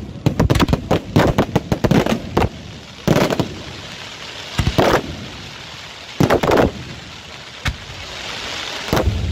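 Aerial firework shells bursting. A rapid string of sharp bangs comes first, then groups of bangs every second or so, with a hiss between them.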